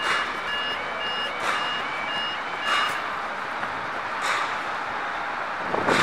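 Railway level crossing audible warning alarm sounding a rapid, evenly repeating high beep while the barriers lower, falling silent about three seconds in once they are down. Several gusts of wind buffet the microphone.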